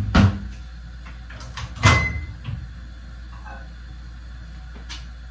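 A microwave oven's door being released and swung open: a sharp click near the start, then a louder clack about two seconds in followed by a short high beep.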